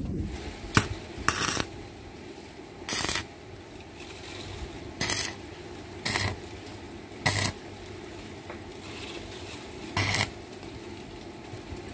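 Electric arc welder striking a series of short tack welds on steel: about seven brief bursts of arc noise at uneven intervals, one to three seconds apart.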